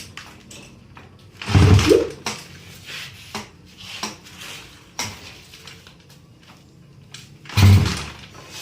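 Honda Kharisma single-cylinder four-stroke engine bored out to 200cc, given two short, loud throttle blips about six seconds apart, with quieter mechanical clatter between them. The engine is freshly built, running for the first time and not yet tuned.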